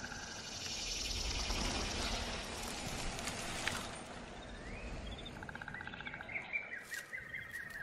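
Outdoor nature ambience. A steady rushing noise fills the first half, then small birds chirp and give short rapid trills in the second half.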